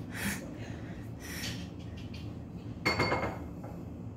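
Quiet dining-room background with faint rustles and a brief clink of tableware, like a glass or dish being set down, about three seconds in.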